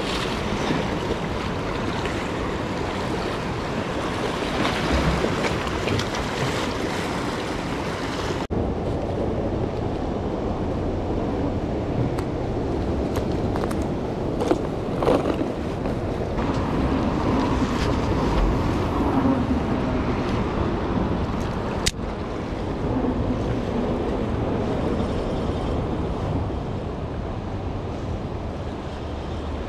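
Ocean surf washing on the beach, a steady rushing noise, with wind buffeting the microphone.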